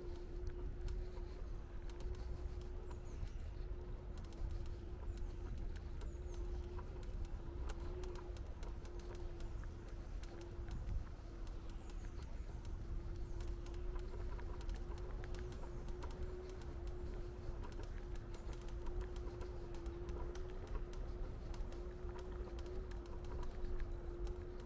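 Street ambience: a steady low rumble and a constant mid-pitched hum, with scattered light clicks and taps throughout.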